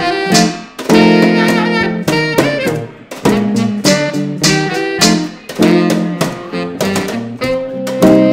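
A small jazz-blues band playing: tenor saxophone holding melody notes over an electric archtop guitar and hand percussion, with sharp rhythmic strikes on the beat.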